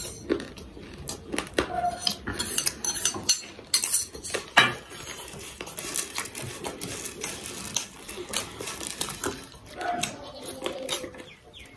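Metal spoon scraping and clinking in a small metal bowl as food is tipped out onto a plate, with many short irregular clicks, along with close-miked chewing of beaten rice.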